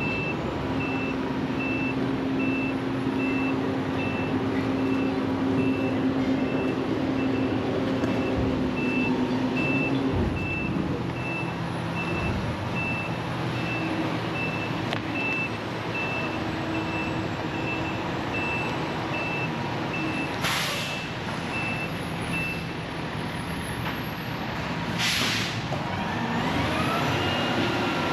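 Tri-axle dump truck backing up, its engine running under a steadily beeping reversing alarm that stops about three-quarters of the way through. Two short hisses of air from the air brakes follow, and the engine note rises near the end.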